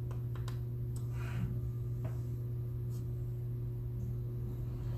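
Faint clicks and a brief scrape of a small screwdriver turning screws into a laptop motherboard, over a steady low hum.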